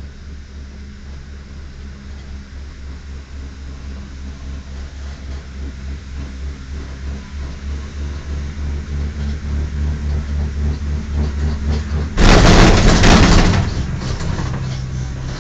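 Low, steady hum of a cable car gondola riding up the line, growing louder with a rhythmic pulse about twice a second. About twelve seconds in, a loud rattling rumble lasts about a second and a half as the car runs over the support tower's roller sheaves, then the hum settles again.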